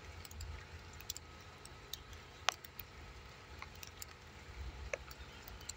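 Scattered, irregular soft clicks over a low rumble, with one sharper click about two and a half seconds in.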